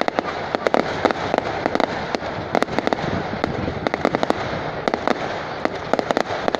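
Fireworks going off: rapid, irregular sharp bangs and crackles, several a second, over a steady background noise.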